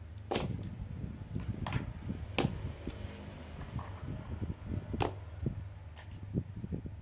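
Hard plastic action figures being set down one by one on a tabletop and handled: four sharp clicks and many light knocks, over a steady low hum.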